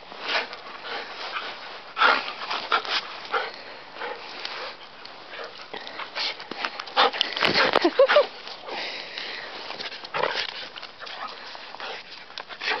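A dog sniffing and snuffling with its nose in the snow: a run of short, irregular breathy bursts, loudest about seven to eight seconds in.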